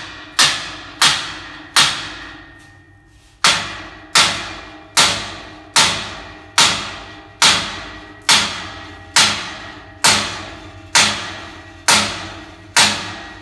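Hammer blows on a steel window grill, about one a second, each with a short metallic ring, with one longer pause of about a second and a half near the start. The grill is being knocked into its opening where it fits tight.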